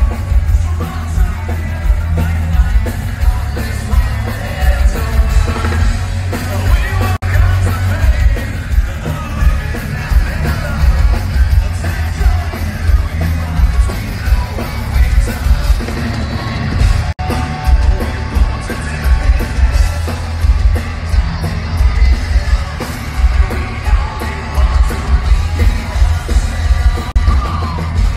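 Live metal band playing loud through a concert PA: drums, distorted electric guitars and a singer's voice, with a heavy, booming low end.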